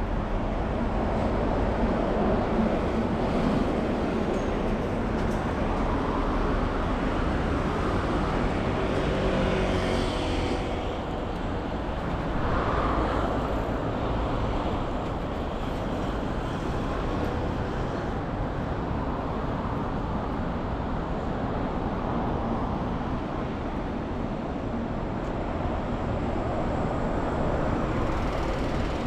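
City street traffic: a steady rumble of cars on the road, with one vehicle's engine note standing out as it passes about nine seconds in.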